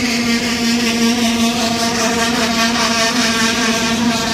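SBB Re 460 electric locomotive standing close by, giving off a steady, loud electrical drone: one low pitch with a stack of evenly spaced overtones over a hiss of fans, holding level without rising or falling.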